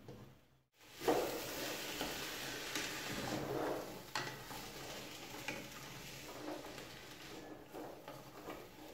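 Diced carrots and other vegetables frying in oil in an enamel pot over a turned-up gas flame, sizzling steadily as they are stirred with a wooden spoon, with occasional knocks and scrapes of the spoon against the pot. The sizzling starts about a second in.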